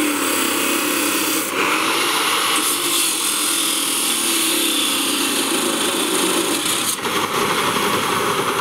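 Bosch abrasive chop saw cutting through steel tubing: a loud, steady grinding of the cut-off wheel on the metal, with the motor's tone wavering under load. About seven seconds in the sound dips briefly, then the saw runs on.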